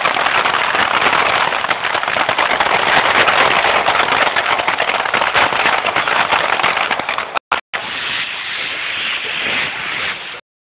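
Fireworks crackling densely and without pause, a rain-like fizz of countless small pops. The sound drops out briefly twice about seven and a half seconds in and cuts off shortly before the end.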